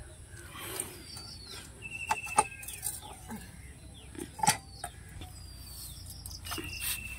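Birds calling, with a short falling whistle repeated about three times. A few sharp knocks of wood and metal about two and four and a half seconds in, as a hand fodder-chopper blade on its wooden block is handled.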